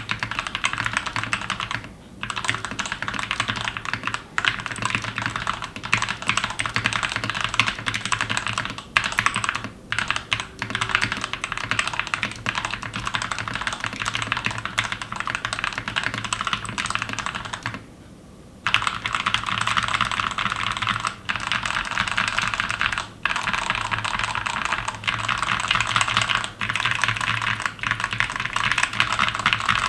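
Fast, continuous typing on a Glorious GMMK TKL mechanical keyboard fitted with Gateron Ink Red and Gateron Yellow linear switches, with a deep, thocky sound. It is briefly interrupted a few times, with the longest pause a little past halfway.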